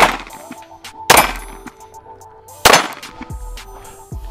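Glock 43X 9mm pistol firing three shots, a little over a second apart, each with a ringing tail, over background music.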